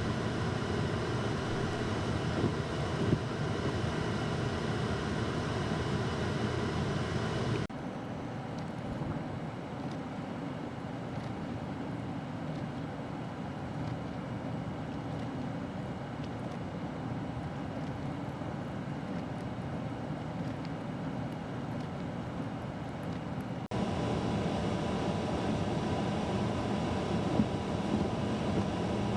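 Steady rushing blizzard wind. It cuts abruptly to a slightly quieter stretch about eight seconds in, then back to a louder stretch near the end.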